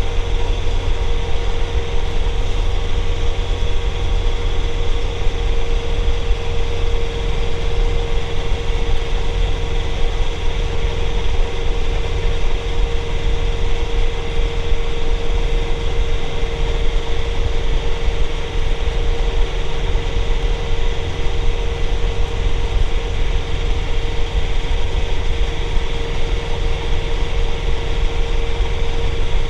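John Deere compact diesel tractor running steadily while snow blowing, heard from inside the cab: a constant low engine rumble with a steady hum on top.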